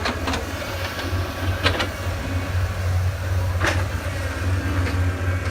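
Truck engine running steadily, heard from inside the cab as a low hum, with a few short rattles or clicks.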